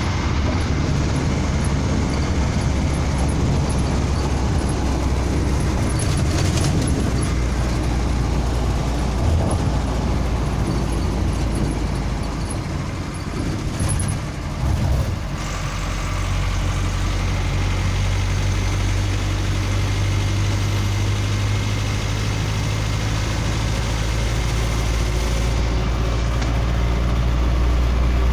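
Mercedes-Benz MB 710 truck's four-cylinder diesel engine running steadily; about halfway through the sound wavers briefly, then settles into a lower, steadier note.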